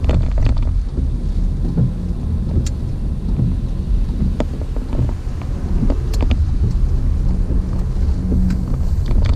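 A car driving in heavy rain: a steady low road and engine rumble with scattered sharp taps of rain on the car.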